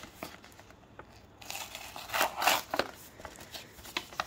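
Paper envelope rustling and crinkling as it is handled, loudest a little past halfway through, with a few small clicks and taps around it.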